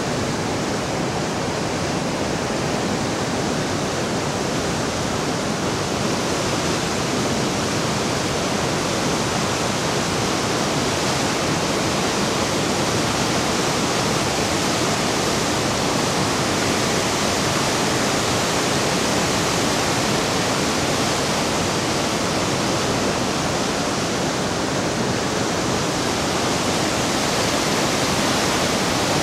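Whitewater of a mountain torrent rushing in a steady, unbroken flow.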